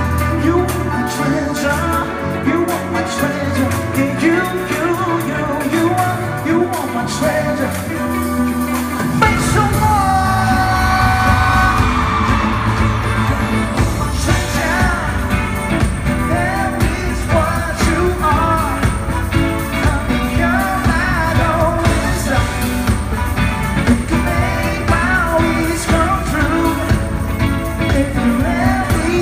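Live pop-rock performance with a male singer. It starts lighter, and the full band with bass and drums comes in about nine seconds in.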